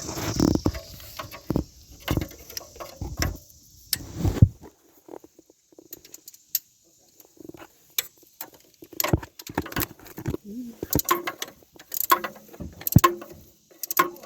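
Irregular clicks and knocks of hand tools and car parts being handled, with a hissing noise that stops about four and a half seconds in.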